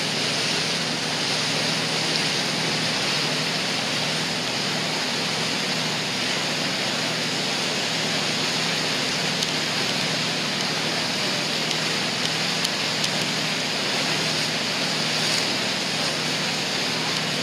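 Steady rushing noise aboard a cruise boat under way, with a low engine drone beneath it.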